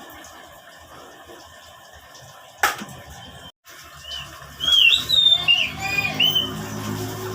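Oriental magpie-robin singing a run of rising and falling whistled notes, starting about halfway through. A single sharp click comes just before the song.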